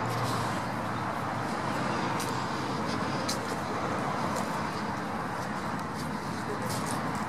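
Steady road traffic noise, an even rush with no single vehicle standing out, and a few faint clicks.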